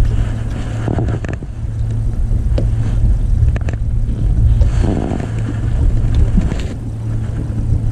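Boat engine running steadily, a constant low hum over a rumble, with a few short knocks.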